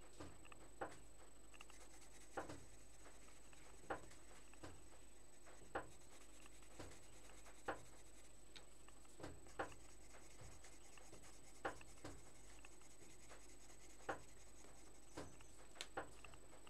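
Dark blue coloured pencil shading on paper: faint, short scratchy strokes, roughly one every one to two seconds.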